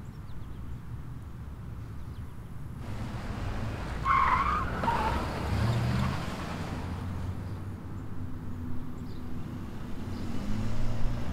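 Road traffic passing: a pickup truck and a sedan drive by with a steady low engine hum, and a short high squeal about four seconds in.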